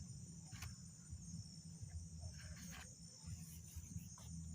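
Faint, steady high-pitched chirring of crickets, with a few soft clicks and rustles.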